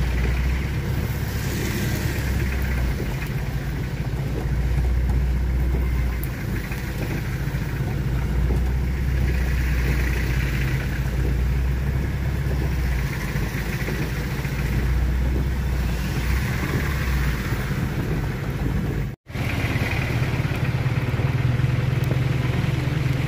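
Road vehicle engine running steadily with road noise, a low rumble that swells and eases over several seconds. The sound drops out for an instant about 19 seconds in.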